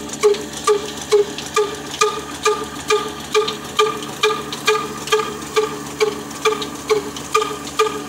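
Fine Mughal single-cylinder horizontal diesel engine with a big flywheel, running steadily while it belt-drives a flour mill. It beats evenly at about two firing strokes a second, each one a sharp knock with a short metallic ring.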